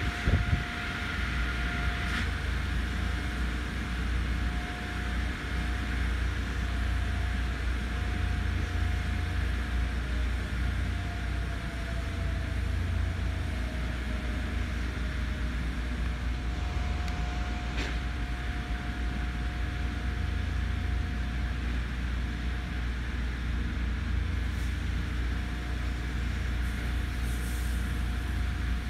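Steady low outdoor rumble with a faint, steady mid-pitched hum and a single faint click about two-thirds of the way through.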